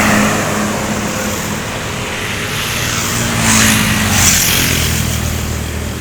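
Tour bus engine running steadily as the bus pulls out and drives past, with two short hisses a little past the middle.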